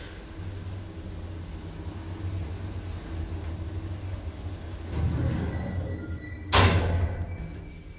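1979 Končar traction lift car in motion: a steady low hum as it travels the shaft. It slows with a brief high whine and stops at a floor with a loud clunk about six and a half seconds in.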